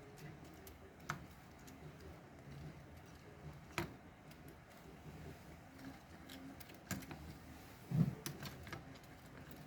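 Scattered light clicks and knocks of small tools and robot parts being handled during disassembly, with the loudest knock about eight seconds in.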